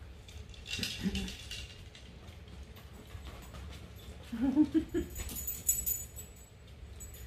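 A puppy moving about on a leather couch, claws scrabbling, with a short whine about four and a half seconds in.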